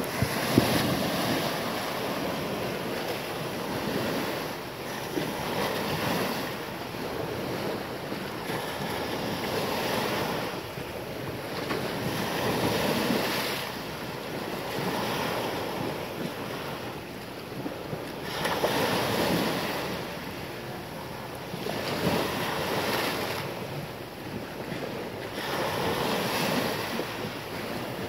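Small waves washing in and breaking at the shoreline, the sound rising and falling every few seconds, with wind buffeting the microphone.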